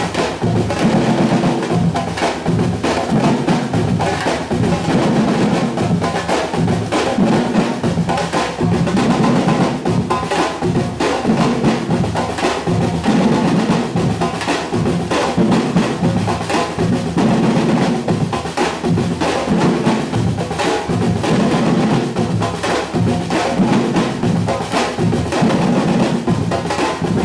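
Batucada-style percussion ensemble of drums playing a dense, steady rhythm, with low bass drums repeating a pattern under rapid snare-like strokes.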